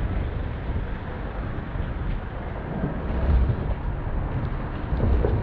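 Wind buffeting the microphone of a moving camera: a low, uneven rumble with a hiss above it.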